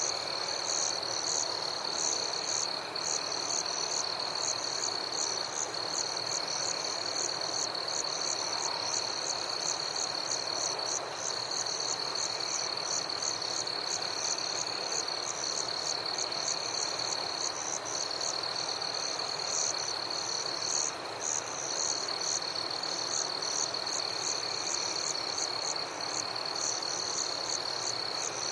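Summer-night insect chorus: a continuous high, steady trill with a few short breaks, and rapid repeated chirping above it, over an even background hiss.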